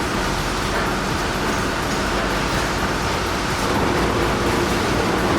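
Heavy machinery engine running steadily, a loud, dense noise with a faint low hum under it.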